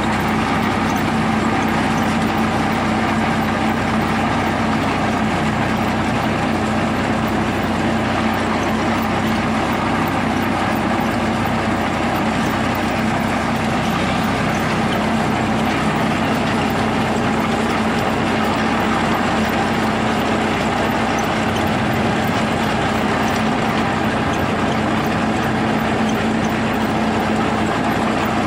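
Massey Ferguson tractor's diesel engine running steadily under load, driving a PTO chain trencher as it cuts through soil. The sound is a constant, even drone with no change in pace.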